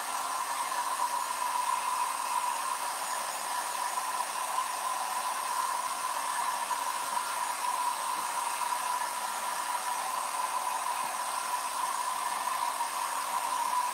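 Hand-held hot-air blower running steadily, drying freshly applied chalk paste: an even whoosh with a constant tone in it.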